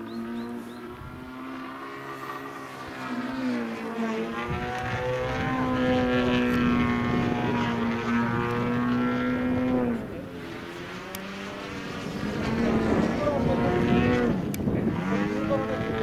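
Radio-controlled model airplane's motor and propeller in flight, a steady buzzing drone that swells and fades as the plane moves about the sky. Its pitch dips briefly twice, once about two-thirds of the way through and again near the end, as it passes or is throttled back.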